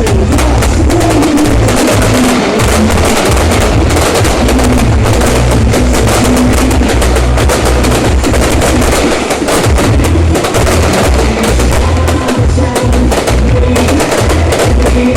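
Fireworks going off in a dense, unbroken run of rapid crackling bangs over low booms, with a few wavering whistling tones.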